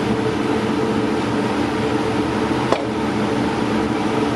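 Steady mechanical hum of kitchen ventilation or a similar fan-driven machine, with one sharp click a little past halfway.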